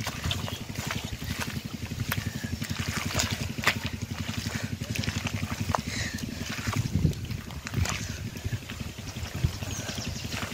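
Wet mud squelching and splatting in scattered bursts as hands dig and scoop through it, over a steady low motor-like throbbing.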